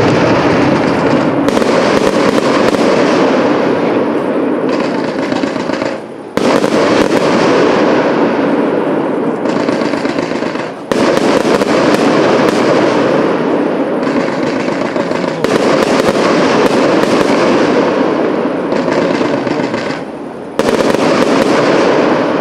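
Fireworks display going off in a dense, continuous barrage of bursts and crackling stars. It falls away briefly three times and starts up again abruptly.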